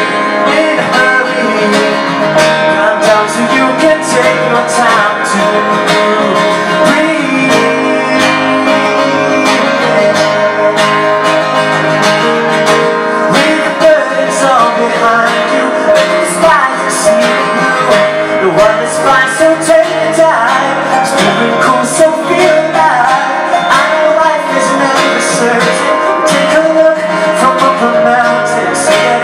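A man singing live to his own acoustic guitar accompaniment.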